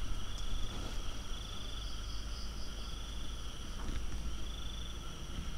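Night insects trilling in repeated bursts about a second long, over steady high-pitched insect drone, with a low rumble underneath.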